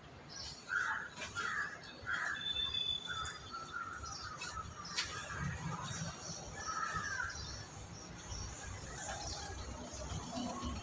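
Crows cawing, a few calls in quick succession and then a couple more several seconds later, with a small bird chirping once in the background.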